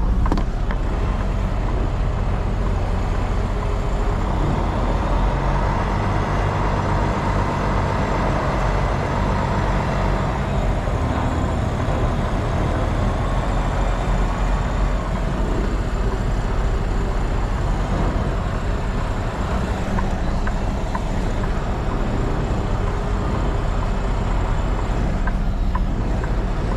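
Semi truck's diesel engine running steadily at low speed, heard from inside the cab, while the rig creeps around a parking lot.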